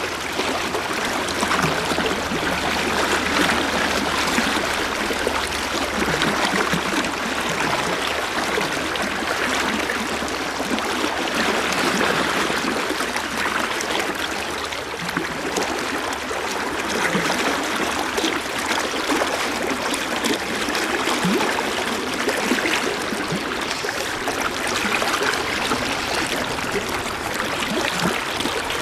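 Steady rush of fast river current, the Farmington River running high.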